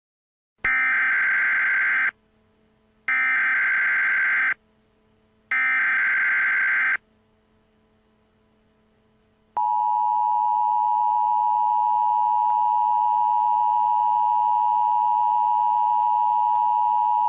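Emergency Alert System SAME header: three bursts of harsh digital data tones, each about a second and a half long with about a second between them. About nine and a half seconds in, the steady two-tone EAS attention signal (853 and 960 Hz) starts and holds; the pair marks the start of an emergency alert broadcast.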